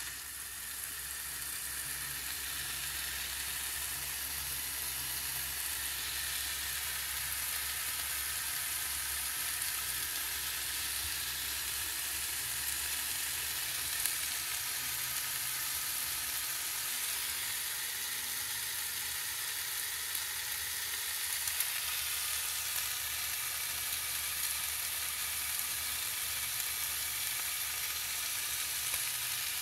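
Bacon sizzling as it fries in a pan: a steady high hiss with a few small pops, one about halfway through and a couple more a little later.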